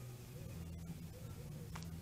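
Two faint sharp clicks about a second apart, an American robin's bill picking at dried mealworms in a plastic tub, over a steady low hum.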